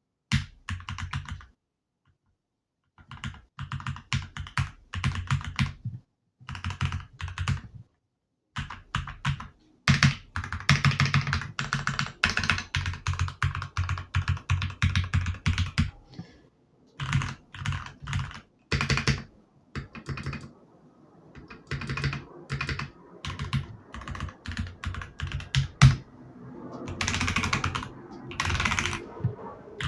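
Keys of a Keychron K10 Pro full-size mechanical keyboard being pressed: runs of keystrokes with short silent pauses between them, the densest and fastest run lasting several seconds about a third of the way in.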